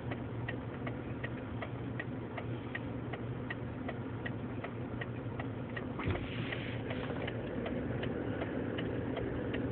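Car turn-signal relay clicking steadily, a couple of clicks a second, over the low hum of the engine idling in the cabin.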